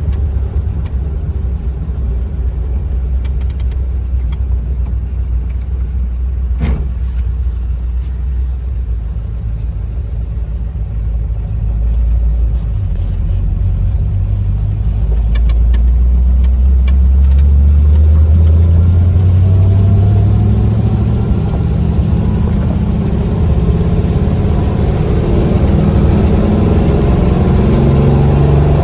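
Old car's engine running while driving, a low rumble. About twelve seconds in it gets louder and the engine note climbs as the car accelerates, then holds at a higher pitch. A single sharp knock about seven seconds in, with a few faint ticks around it.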